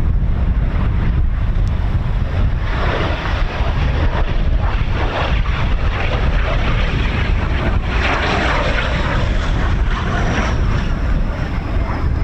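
Heavy wind buffeting the microphone, with a passing vehicle's noise swelling up about three seconds in, loudest around eight seconds in, then fading with a faint falling whine.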